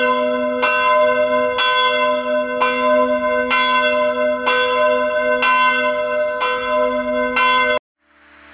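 Church bell in a village church tower ringing, struck evenly about once a second so that each stroke rings into the next. It cuts off suddenly near the end.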